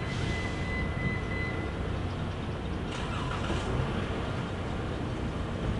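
Steady low rumble of a diesel locomotive and road vehicles at a railroad grade crossing. A thin steady high tone dies away about a second and a half in, and a short hiss comes about three seconds in.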